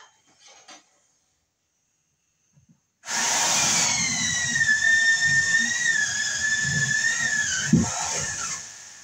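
Electric drill running for about five seconds with a steady high whine, starting abruptly a few seconds in. Near the end there is a knock, and the whine dips in pitch and winds down.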